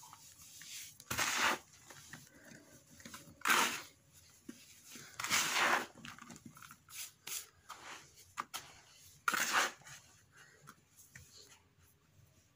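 Hands squeezing and crumbling dry sand-and-cement clumps: gritty crunching in four louder bursts, with lighter crackles and falling crumbs between, quieter near the end.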